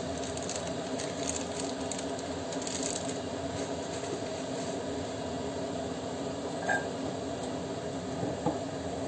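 A few light clinks and taps of kitchenware being handled, one with a brief ring about two-thirds of the way through, over a steady machine hum.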